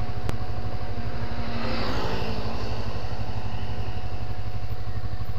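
Motorcycle engine running steadily at low revs as the bike rolls slowly away from a stop, with one short click shortly after the start.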